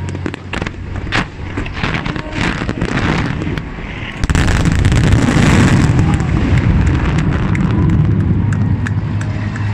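Fireworks finale. At first there is a quick string of bangs and crackling shell bursts. About four seconds in, it jumps to a louder, continuous barrage of many shells bursting at once.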